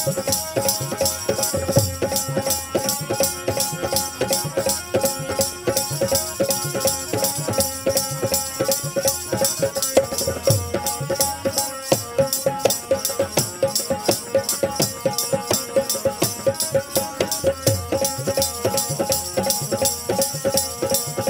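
Instrumental interlude of a folk song: a harmonium holding a steady reed tone and melody, dholak drum strokes, and jingling hand percussion in a fast, even rhythm.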